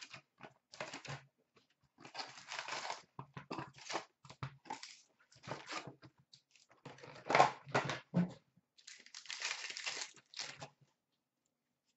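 A cardboard box of hockey card packs being torn open and the wrapped packs handled: bursts of tearing, crinkling wrapper and rustling cardboard, broken by short quiet gaps, with a few sharper knocks about two-thirds of the way in.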